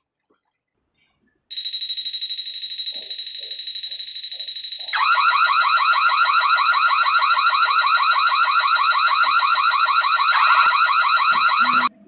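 Water leak detector alarm going off because the water level has dropped below its probe: a shrill, rapidly pulsing high beep starts about a second and a half in. About five seconds in, a louder warbling alarm tone joins it, and both cut off suddenly just before the end.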